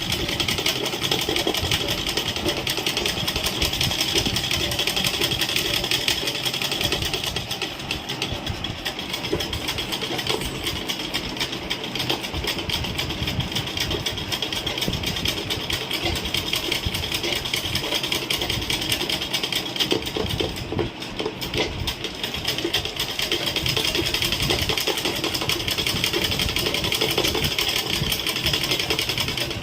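Domestic sewing machine running steadily at speed, stitching embroidery lines. The needle goes in a fast continuous chatter that eases off briefly about two-thirds of the way through.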